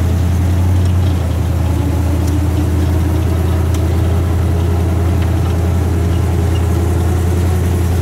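Swamp buggy engine running steadily as the buggy drives along, a loud, steady low drone.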